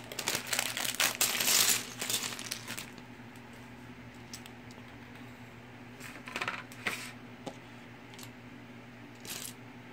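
Plastic Mega Bloks bricks clattering in a dense rattle for about three seconds as a bag of pieces is opened and tipped out onto a tabletop, then a few separate clicks of bricks being handled.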